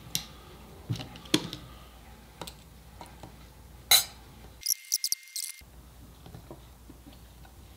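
Scattered light clicks and taps of a screwdriver and small screws on a metal outlet cover plate as the plate is screwed down onto the outlet box; the sharpest click comes about four seconds in.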